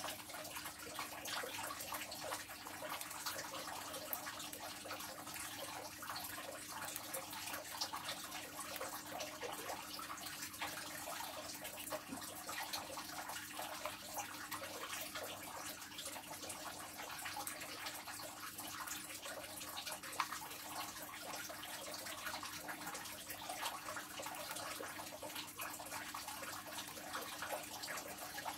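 Steady splashing or running water, a dense crackly hiss full of tiny drips, over a faint steady hum.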